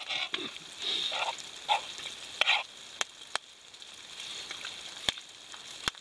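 Eating sounds: a metal spoon clicking and scraping on a frying pan, with a few sharp clicks, and short chewing and mouth noises in the first half as pancake is eaten.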